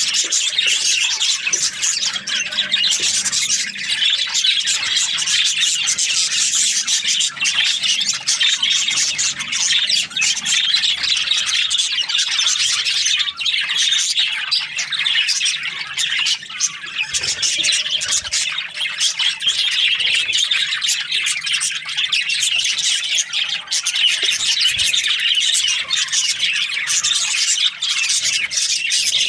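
A flock of budgerigars chirping and chattering continuously, many birds calling over one another with short chirps and squawks.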